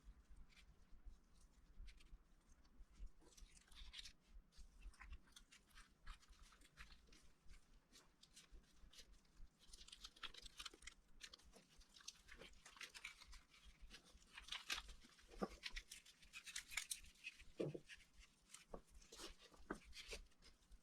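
Faint crinkling, rustling and light clicks of hands assembling a gimbap roll, handling a dry seaweed sheet, with the clicks coming thicker in the second half.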